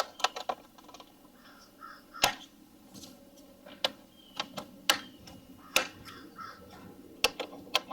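Plastic latch clips of a Toyota Highlander Hybrid's engine air filter box cover being snapped shut by hand, a string of sharp, irregularly spaced clicks and snaps as the cover is locked down.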